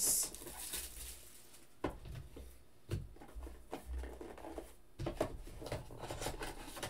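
A cardboard trading-card box and its packaging being handled on a table: a brief crinkle of plastic shrink wrap at the start, a few light knocks of the box about 2 and 3 seconds in, then a run of rustling and tapping as cardboard filler sheets are slid out, from about 5 seconds on.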